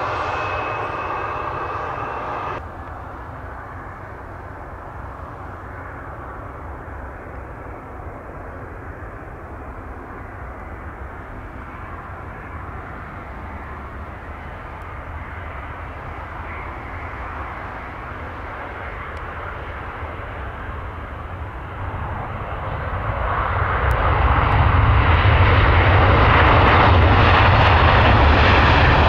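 Briefly, the whine of an Embraer E175 regional jet's turbofans as it rolls along the runway. It gives way to the steady jet rumble of a Lufthansa Airbus A350-900 on approach, which grows much louder from about three-quarters of the way in as the airliner lands and rolls out on the runway.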